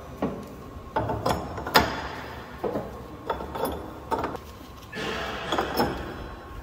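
Metal clamp jaws on the chuck of a Giuliano S558 truck tire changer clicking and clunking as they are handled by hand: about ten short knocks at uneven intervals, with a steady hum starting about five seconds in.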